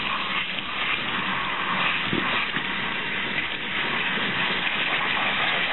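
Water from a hairdressing basin's spray head running steadily through wet hair and splashing into the backwash basin, an even hiss.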